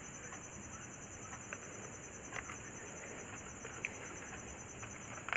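A few faint, scattered key clicks from a Zebronics DLK01 keyboard over a low background hiss.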